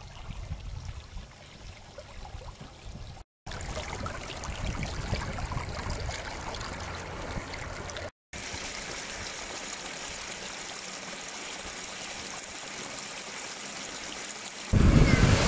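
Muddy floodwater from a heavy rain rushing along a dry gully bed, a steady stream-like rush of water over stones and earth. The sound drops out briefly twice, and a louder, deeper rush starts near the end.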